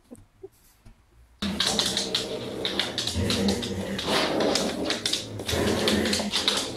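Belgian Malinois growling steadily while tugging on a rope toy, with dense clicking and scuffling over it. Quiet for about the first second and a half, then loud.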